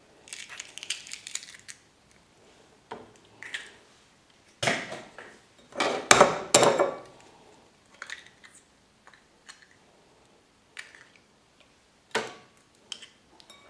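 Eggs being cracked and separated by hand: eggshells cracking and crunching and tapping against a glass bowl, in scattered bursts of clicks with quiet gaps, the loudest cluster about six seconds in.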